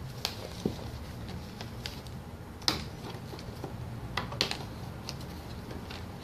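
Irregular light clicks and taps of hands working a doll's packaging loose inside its cardboard box, with the sharpest click about two and a half seconds in.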